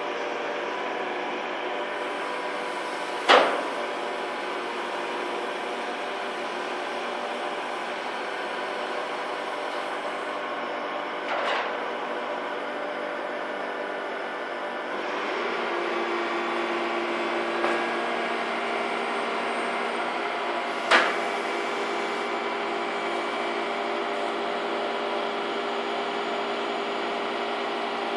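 Terex mine roof descaler running, a steady mechanical drone of several held tones. About halfway through the drone gets a little louder and takes on a new tone. Three sharp knocks are spread through it, the loudest early on.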